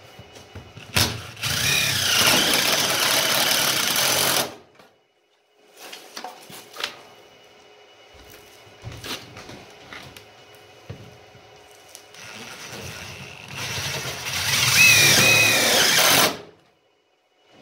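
Cordless power driver running twice, each run lasting about three and a half seconds with a rising pitch, as it sets self-tapping screws into the sheet-steel seam of a wood stove to pull the two warped halves back together. Light clicks and handling sounds come between the two runs.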